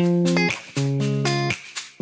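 Background music: a plucked-string instrumental with notes in a steady repeating pattern.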